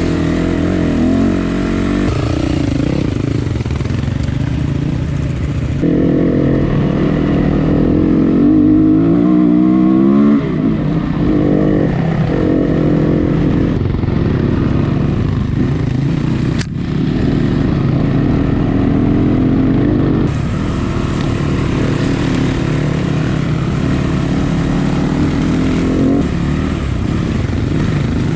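Dirt bike engine running and revving up and down as it rides, its pitch climbing and falling again and again. There is one sharp knock about two-thirds of the way through.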